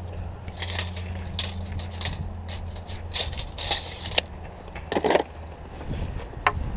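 Footsteps over loose riprap rocks: irregular clacks, knocks and scrapes of boots on stone, with a louder knock about five seconds in, over a steady low hum.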